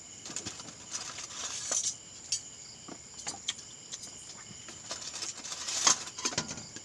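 Spoons clinking and scraping against dishes during a meal, a scatter of light clicks and rustles with the loudest clatter about six seconds in, over a steady high chirring of crickets.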